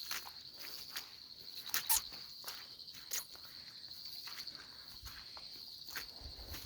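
A steady high-pitched, finely pulsing trill of calling animals around a rain-filled pond, with a few short clicks and soft steps, the loudest about two seconds in.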